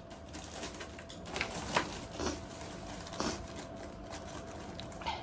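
A person breathing and sniffing in a small room: about five short breath sounds, the loudest a little under two seconds in.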